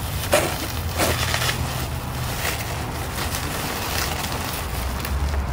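Plastic bubble wrap crinkling and crackling as it is handled and pulled out of a cardboard box, a run of irregular little crackles over a steady low rumble.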